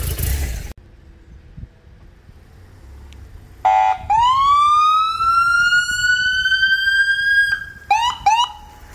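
Police siren: a short horn blast, then one long wail rising in pitch for about three and a half seconds and cutting off, followed by two quick whoops. Under a second in, a low engine rumble stops abruptly.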